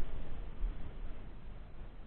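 Wind buffeting the microphone: an uneven low rumble with a hiss over it, easing off somewhat toward the end.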